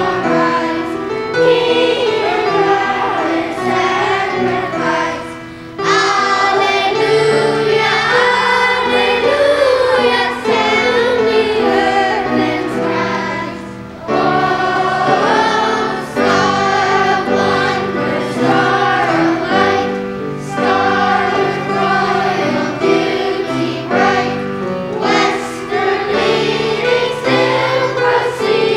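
Children's choir singing a Christmas hymn over accompaniment with steady held bass notes, pausing briefly twice between phrases.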